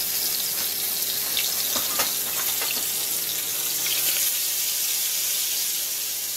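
Pork chops frying in hot grease, giving a steady sizzle, with a few light clicks between about one and a half and three seconds in.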